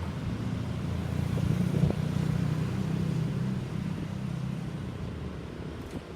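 A motor vehicle's engine passing by, getting louder to a peak about two seconds in and then slowly fading away.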